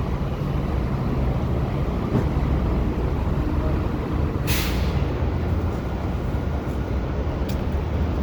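Steady rumble of city street traffic, with one brief sharp hiss about halfway through.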